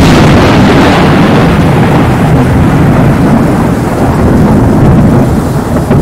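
Thunderstorm: loud, continuous rolling thunder over a hiss of rain, easing off slightly near the end.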